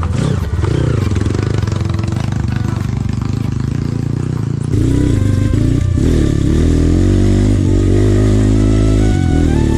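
Trail motorcycle engine running and revving, its pitch rising and falling. About halfway through, music comes in louder over it, with a stepping melody.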